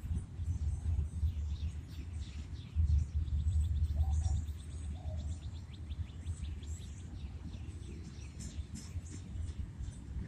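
Small birds chirping, with a fast trill in the middle, over a low rumble that is heaviest a few seconds in.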